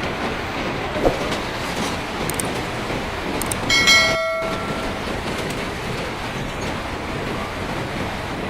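A steady, loud rushing roar, with a short horn-like blast about four seconds in.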